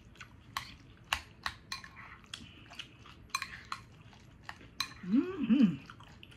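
Metal fork clicking and scraping against a glass bowl as food is scooped and stirred, a string of sharp clinks. About five seconds in, a short hum of the voice rises and falls twice.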